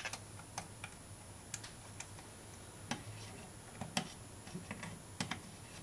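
Faint, irregular light clicks and taps of a capacitor's wire leads being bent into a hook and fitted to a tube socket in a metal amplifier chassis.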